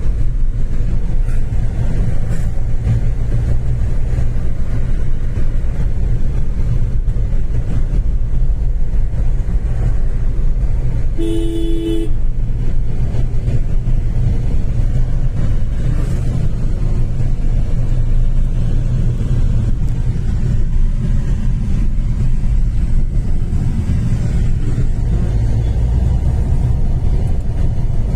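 Steady low rumble of a vehicle moving along a road, with one short horn honk about eleven seconds in.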